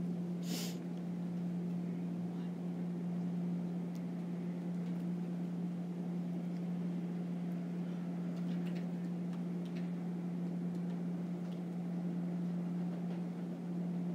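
Steady low room hum with a faint hiss, while the room is otherwise quiet. There is a brief faint hiss-like noise about half a second in.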